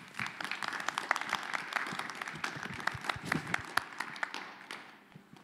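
Audience applause: many hands clapping in a dense, even spread of claps that fades away near the end.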